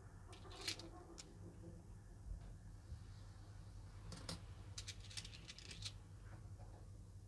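Handful of Nordic-gold 50 euro cent coins clinking against one another as they are picked through: a few faint metallic clicks about a second in, then a quick cluster of them between about four and six seconds in.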